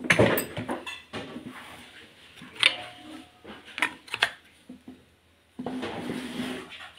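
Metal clinks and knocks of a car clutch pressure plate and disc being handled, with a rod-shaped tool in the clutch centre. A few separate sharp strikes, the loudest just at the start, then a longer rustle near the end.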